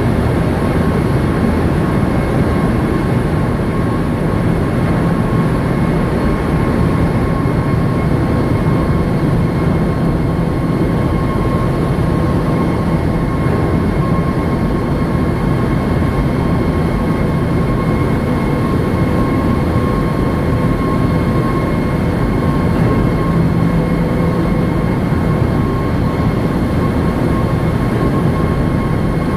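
Ship's engine room machinery running: a loud, steady rumble of engines, pumps and ventilation aboard a large container ship, with a constant high whine on top.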